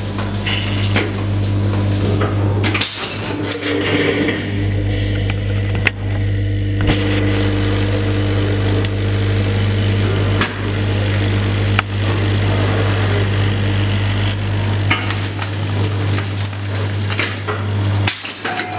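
Electromagnetic vibratory feeder of a pouch packing machine humming steadily while it feeds granules toward the weighing heads, with a hiss of product running and a few sharp clicks from the machine. The hum drops out briefly about three seconds in and stops just before the end.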